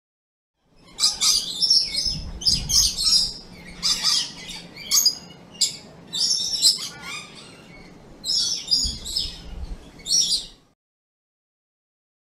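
Coconut lorikeet calling: a rapid series of short, high-pitched calls in quick clusters, starting about a second in and stopping a couple of seconds before the end.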